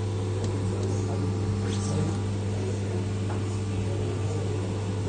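CNC milling machine running steadily through a long cutting program, a low even hum with a few faint ticks.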